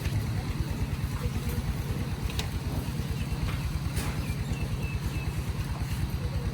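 An engine running steadily with a fast, even low chugging.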